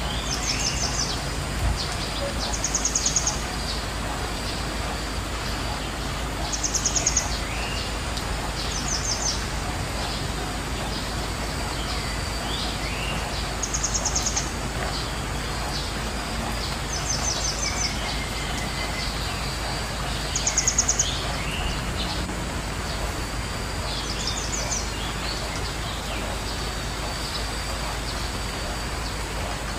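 Birds calling: short, rapid high-pitched trills repeating every few seconds, with a few lower falling notes in between, over a steady background hiss and low hum.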